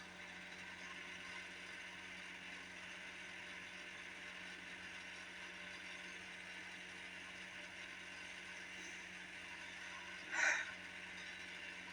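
Faint steady background hiss with a low hum. A single short soft noise comes near the end.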